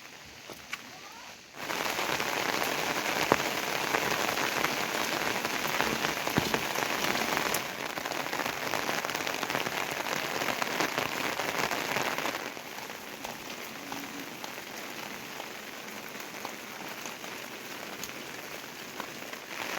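Heavy rain falling on surfaces, a steady dense hiss. It starts abruptly after a quieter second and a half and turns somewhat softer twice later on.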